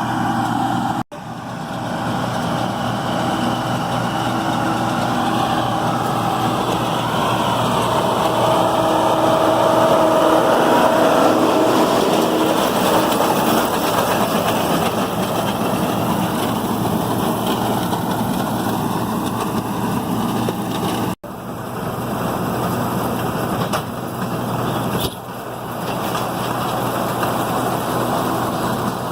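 John Deere 4440 tractor's six-cylinder diesel running steadily under load, pulling a New Holland Roll-Belt 450 round baler that is picking up and rolling hay. The sound cuts out for an instant twice, about a second in and about two-thirds of the way through.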